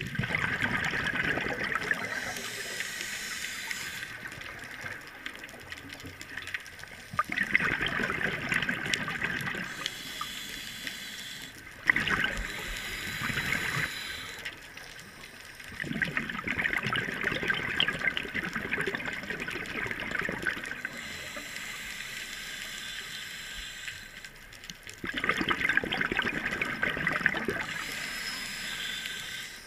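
Scuba regulator breathing underwater: about five bursts of exhaled bubbles, each a few seconds long, with quieter stretches between as the diver breathes in.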